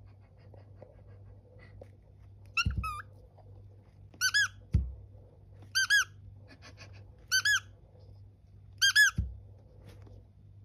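Cockatiel calling: short, high chirps, each a quick pair of notes, repeated about every one and a half seconds. A few low thumps come between the calls.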